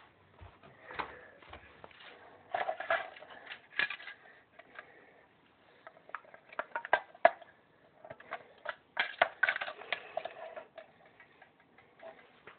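Irregular sharp clicks and short rattling clusters of small hard objects, with the sharpest click about seven seconds in.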